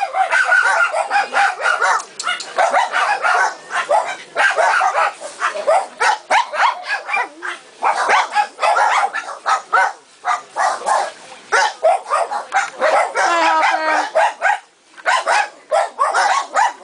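Many kennelled dogs barking at once, a dense, unbroken din of overlapping barks and yips, with a short whine about three-quarters of the way through.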